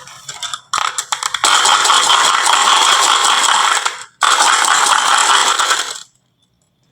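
Marbles rolling and clattering down a wooden marble run: a few separate clicks, then a dense, loud rattle that breaks off briefly around the middle, resumes, and stops suddenly about six seconds in.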